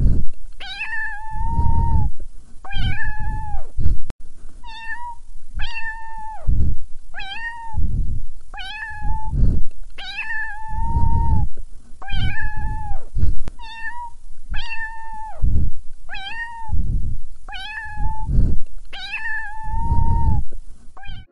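Domestic cat meowing over and over, about one meow a second, some short and some drawn out, each one a high call that drops in pitch at its end.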